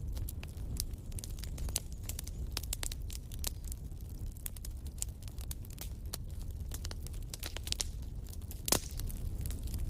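Wood campfire crackling, with many irregular small pops and snaps over a steady low rumble, and one louder pop near the end.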